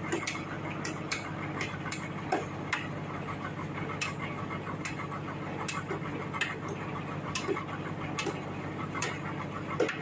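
Hammer blows striking repeatedly, sharp and irregular at about one or two a second, over the steady hum of the sawmill's idling engine.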